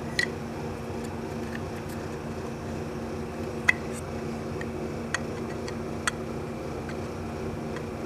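Scattered light metallic clicks and taps from small steel compressor parts being handled, the loudest a little under four seconds in, over a steady low hum.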